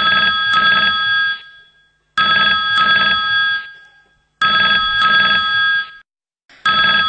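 A telephone ringing four times, each ring a steady buzzy tone about a second and a half long with short gaps between. The fourth ring is cut short as the call is answered.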